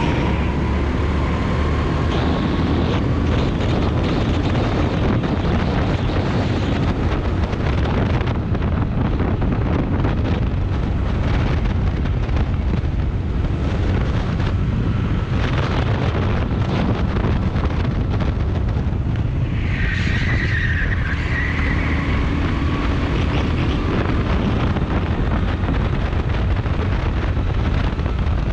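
Rental kart's air-cooled single-cylinder engine running hard at racing speed, with heavy wind noise buffeting the onboard camera. Tyres squeal briefly in a corner about two-thirds of the way through.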